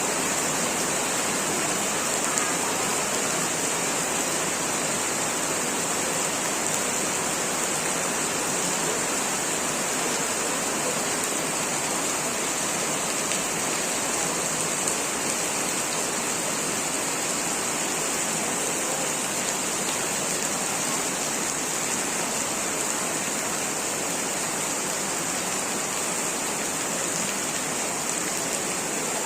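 Heavy rain falling steadily, a constant dense hiss with a few faint drop ticks.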